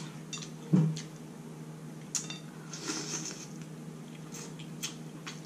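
Eating sounds: a wooden spoon stirring in a glass bowl of saucy food, giving a few light clicks against the glass, with soft wet mouth sounds around the middle. There is a short low vocal sound just under a second in, over a steady low hum.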